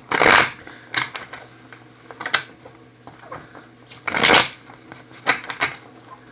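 A tarot deck being shuffled by hand: short papery swishes of cards, the loudest right at the start and about four seconds in, with lighter card flicks between.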